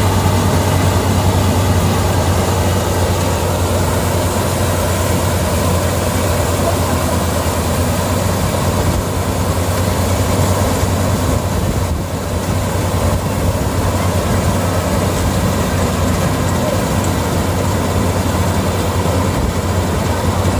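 Combine harvester engine running steadily with a deep, even hum, dipping briefly in loudness about twelve seconds in.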